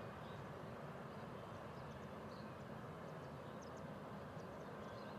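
Boeing 787-9's jet engines running at low taxi thrust, a steady, distant rush. A few faint high bird chirps come in the second half.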